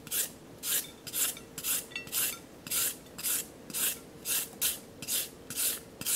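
A carrot being shredded into thin strips on a handheld julienne grater: rasping strokes at an even pace, about two a second.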